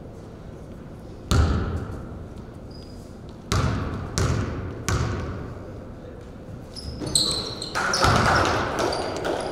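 A basketball bouncing on a gym floor: four separate, uneven bounces that echo through the hall. Near the end come short high sneaker squeaks and a busier patch of court noise.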